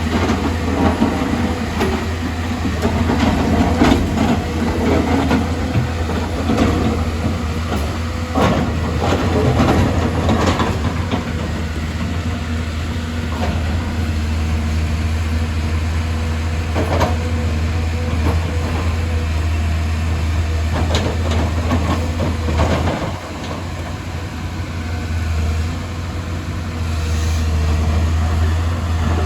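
Excavator at work: its diesel engine runs steadily under scattered metallic clanks and rattles. The engine note drops about two-thirds of the way through and rises again near the end.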